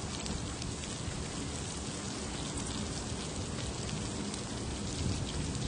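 Pork belly slices sizzling steadily on a hot grill plate, a constant frying hiss.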